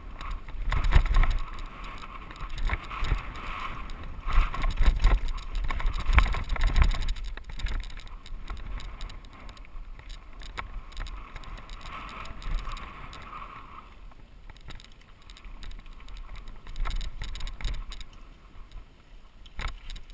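Mountain bike clattering and rattling over a rocky dirt singletrack descent, with tyre noise on the dirt and a low rumble of wind. The knocks are heaviest in the first seven seconds and ease off after that.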